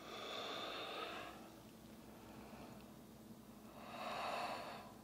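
A woman's breathing in a yoga forward fold: two long, audible breaths, one over the first second or so and another about four seconds in.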